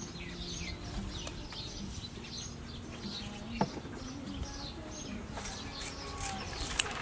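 Small birds calling with short, high, falling chirps repeated about twice a second. Two sharp clicks cut in, one mid-way and a louder one near the end, as banana leaves are snipped with scissors.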